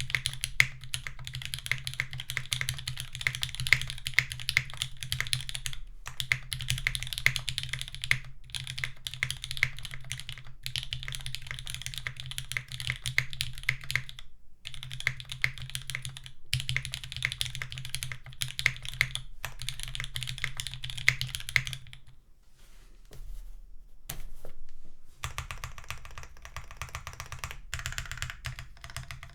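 Typing on a Sangeo60 mechanical keyboard with linear SP-Star White Meteor switches, lubed and filmed with 67 g springs, in an aluminium plate with foam between plate and PCB, under GMK keycaps. Fast, dense keystroke clacks, with a few short pauses and a longer quieter lull a little past the two-thirds mark.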